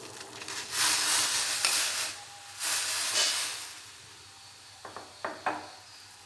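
Boiling water in a steel saucepan hissing and fizzing as a spoonful of ground spice powder goes in and the water foams up, in two loud surges that then die down. A few short taps near the end.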